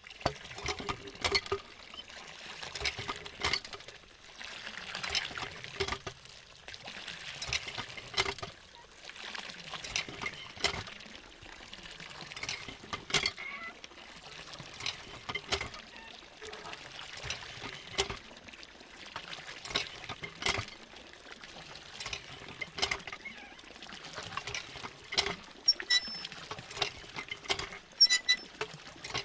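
Hand water pump being worked: the handle knocks and clanks in a steady rhythm about every two and a half seconds, and water gushes and pours out in a surge with each stroke.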